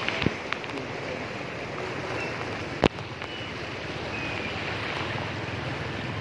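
Fast-flowing floodwater rushing steadily past the bank. A few light clicks come near the start, and one sharp click, the loudest sound, about three seconds in.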